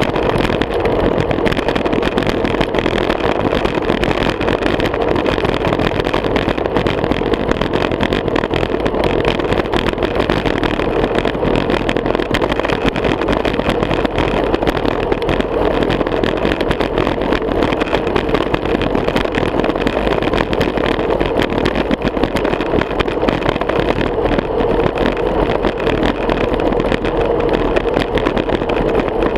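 Steady wind and tyre noise from a road bicycle rolling on asphalt, picked up by the bike-mounted action camera's microphone. It holds even throughout, with no distinct knock.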